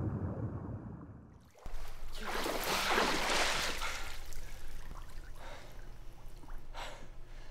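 A muffled, dull underwater sound fades away. About a second and a half in, water splashes loudly as two swimmers break the surface, followed by softer sloshing water.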